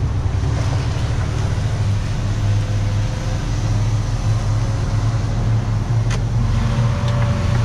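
Steady engine and road noise of a road vehicle on the move, with a low hum throughout. A single sharp click about six seconds in.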